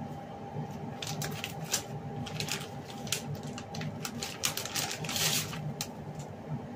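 Irregular crinkling and clicking of plastic packaging as a soft taco wrap is handled and taken out, densest about five seconds in, over a steady low hum.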